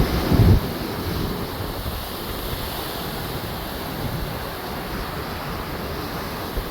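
Storm surf pounding the rocky shore with tropical-storm wind buffeting the microphone: a steady rushing noise, with a louder low rumble about half a second in.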